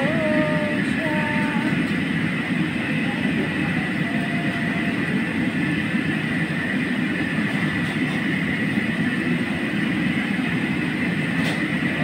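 Crabs deep-frying in a wok of boiling oil over a high gas flame: a steady, continuous roar of the wok burner and bubbling oil.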